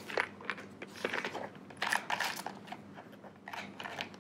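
Clear plastic pack crinkling and rustling as hands rummage in it, with small irregular clicks and crackles.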